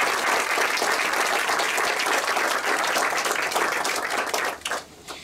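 Audience applauding, a dense clatter of many hands that dies away about four and a half seconds in, leaving a few last claps.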